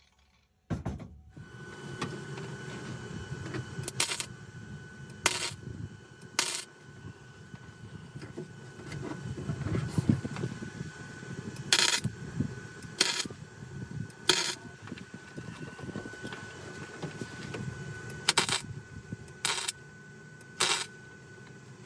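MIG welder firing short tack welds on a steel car floor pan, in groups of three about a second apart with pauses between the groups, over a steady low rumble.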